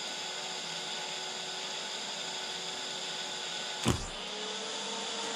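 Steady hiss of a scratch-start TIG arc run from a DC stick welder, welding steel angle. About four seconds in the arc is broken with one sharp crack as the torch is lifted, and a fainter steady hum carries on.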